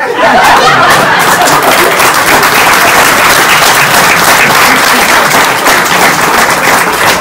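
Audience applauding, a loud, dense clapping that breaks out suddenly and holds steady.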